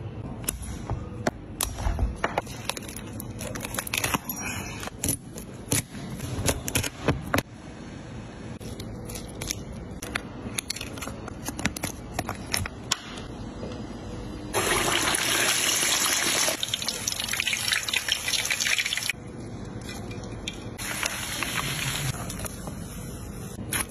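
Raw spiny lobster being worked on a wooden board, with many sharp clicks and knocks over the first several seconds. Then a loud, even sizzle of the lobster meat frying for about four seconds, and a second, shorter sizzle a little later.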